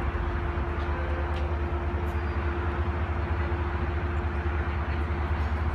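Caltrain diesel locomotive idling while stopped at the station: a steady, pulsing low rumble with a faint steady hum above it.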